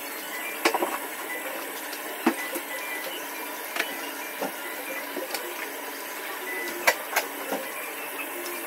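Hands rubbing cleansing foam over a wet face: soft wet rubbing with scattered small clicks and pops, over a steady hiss.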